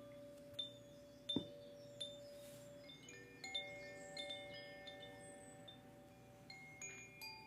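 Meditation chimes struck one after another, each note ringing on in a long, steady tone, so that several pitches overlap. The loudest strike comes a little over a second in.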